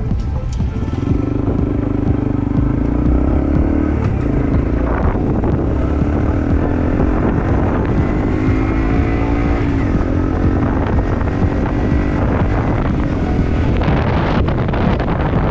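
Honda CT125 Hunter Cub's single-cylinder engine breathing through an aftermarket Yoshimura Cyclone exhaust, heard from the rider's seat. The engine note climbs in pitch as the bike accelerates, then climbs again after about five seconds. Wind noise on the microphone grows near the end.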